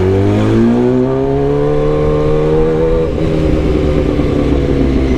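Kawasaki ZX-10R's inline-four engine pulling under acceleration, its pitch rising steadily for about three seconds. The throttle then eases and the engine note slowly falls.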